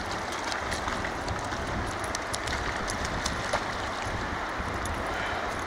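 Steady rush of a fast, shallow river running over stones, with many faint ticks scattered through it.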